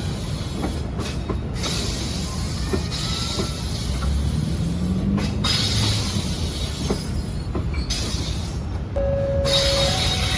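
Train running on the rails, a steady rumble and rail noise with occasional clicks from the wheels. Near the end a steady chime-like tone comes in.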